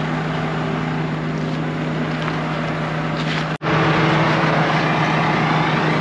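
Combine harvester's diesel engine running steadily with a low, even hum. It breaks off for an instant about three and a half seconds in and comes back a little louder.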